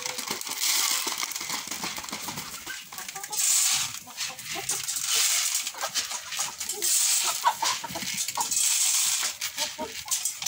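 A flock of chickens clucking in short calls as they crowd in to feed, with many small pecking ticks over a steady hiss.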